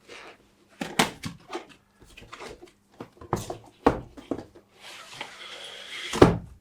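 A cardboard product box being opened and handled: several sharp knocks and taps, then a scraping rustle of about a second and a half that ends in a loud thump.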